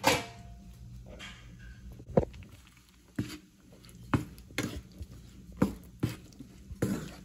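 A wooden spatula stirs kidney beans into thick masala gravy in a non-stick frying pan. It knocks against the pan about eight times at irregular intervals.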